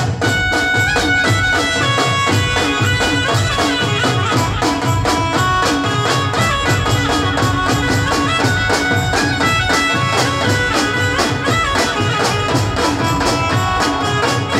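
Live Indian folk band playing an instrumental interlude: dhol and drums keep a fast, dense rhythm under a reedy lead melody.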